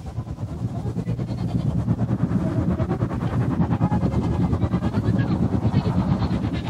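Dense low rumbling noise with a rapid, crackling flutter, swelling over the first two seconds. It comes from a lo-fi experimental tape collage of processed radio and field recordings and samples.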